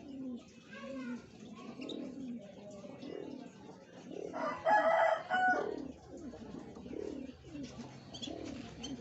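Doves cooing over and over, low coos about once a second, with a louder, higher call about halfway through.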